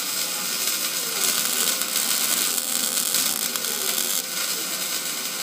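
MIG welding arc crackling steadily as the CNC-guided torch lays a bead along the pattern: an even, dense crackling hiss with no breaks.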